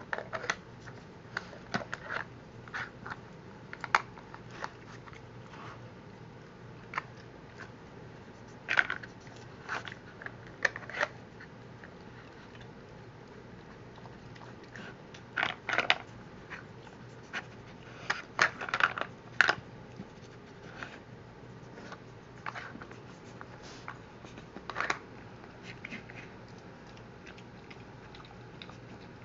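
Plastic dog treat-puzzle toy clicking and clattering as a dog noses its sliding covers and bone-shaped blocks about: irregular light clicks and knocks, with a few short clusters of rattling.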